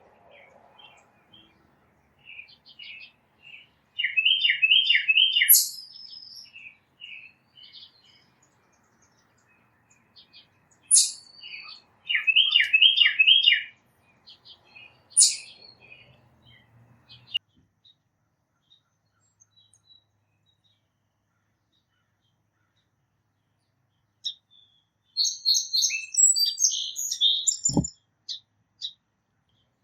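Wild songbirds singing: a phrase of three or four quick, evenly spaced notes followed by a higher note, heard three times in the first half, then different, busier chirping near the end. A single short thump near the end.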